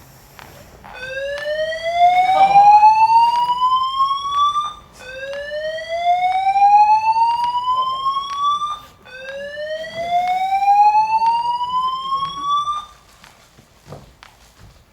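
Building fire alarm voice-evacuation system sounding its whoop tone: three loud rising sweeps, each about four seconds long, back to back, stopping about two seconds before the end.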